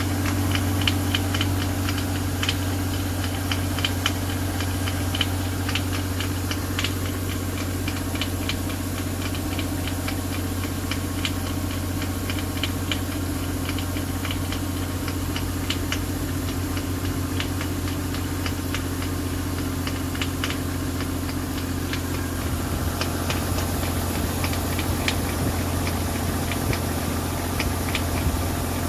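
Toyota 1JZ straight-six engine running at a steady idle, with a quick, irregular clicking rattle over the engine hum. It is a noise that comes when the engine is cold and nearly disappears once it warms up; the owner does not know its cause.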